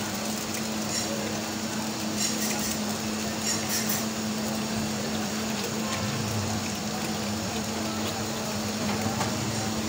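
Food-stall kitchen ambience: a steady low hum under a constant hiss, with a few light clinks of utensils.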